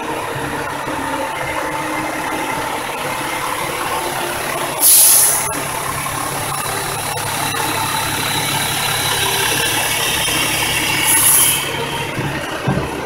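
Fire engines' diesel engines running steadily as the trucks pass slowly in a parade. Two short, loud air-brake hisses come about five seconds in and again about eleven seconds in.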